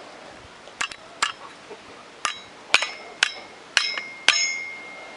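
Hammer tapping on the steel parts of a walk-behind tractor's cooling-fan assembly as they are driven into place: about seven sharp metallic blows, irregular and roughly half a second apart. They grow louder, and the later ones ring briefly.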